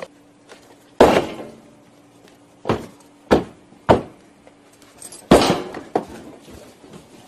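Five sharp thumps or knocks, the loudest about a second in and a little after five seconds, with a faint steady hum between them.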